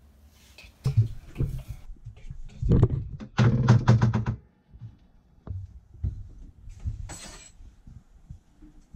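A long, thin brass horn blown in two rough, buzzing blasts about three seconds in, the second longer. Scattered knocks and thumps come before and after.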